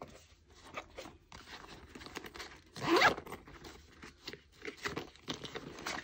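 Zipper on a packed nylon pouch being pulled shut, one short rising zip about three seconds in, amid soft rustling and small clicks of the bag being handled.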